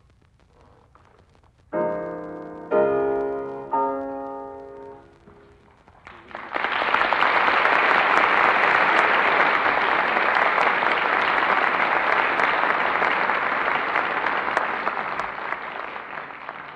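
Closing of a 1945 live concert recording: three piano chords struck about a second apart, each dying away, then audience applause starting about six seconds in and fading near the end.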